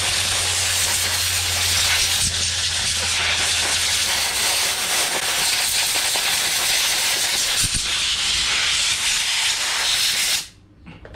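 Compressed-air blow gun blowing dust and grit out of an opened angle grinder's housing: a loud, steady hiss that cuts off suddenly near the end.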